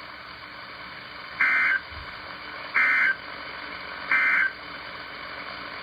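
Emergency Alert System end-of-message data tones: three short bursts of digital data tones about a second apart, over a steady background hiss. They mark the end of the alert message.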